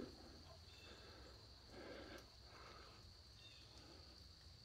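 Near silence: faint outdoor ambience with a steady high hiss and a few soft rustling sounds, the clearest about two seconds in.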